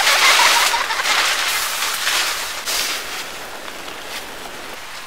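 Rustling and shuffling of gear and bags being handled while tidying inside the car, in uneven surges that are loudest for the first three seconds and then quieter.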